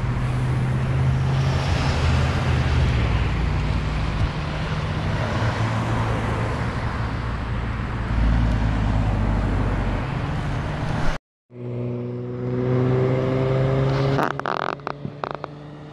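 Highway traffic: vehicle engines running and passing, a steady low hum under a dense roar of noise. About eleven seconds in it cuts off abruptly to a brief silence, then comes back quieter with a steady drone and a few clicks.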